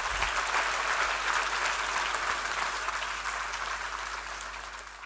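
Audience applauding, strongest in the first couple of seconds and easing slightly after.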